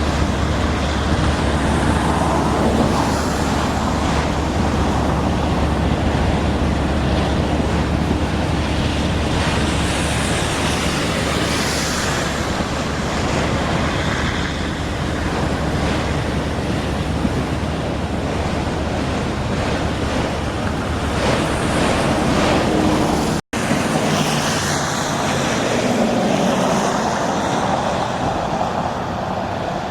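Freight train rolling past, a steady loud rumble of wheels with a low diesel drone that fades out about two-thirds of the way through. The sound cuts off for an instant, then the rumble carries on.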